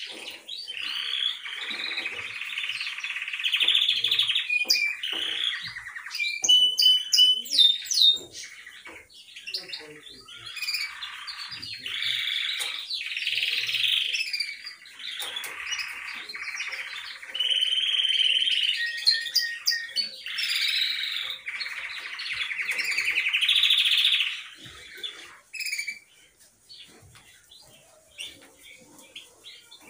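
Caged canary singing long rolling runs of rapid trills, with a few sharp, high notes about seven seconds in; the song breaks off for the last few seconds.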